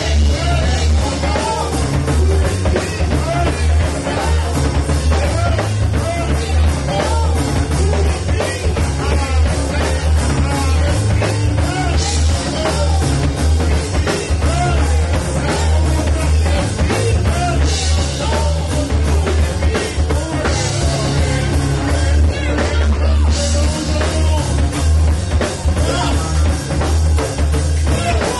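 Live band playing with drums, electric guitar and a heavy low end, while several vocalists sing into microphones. Bright cymbal crashes come in a few times in the second half.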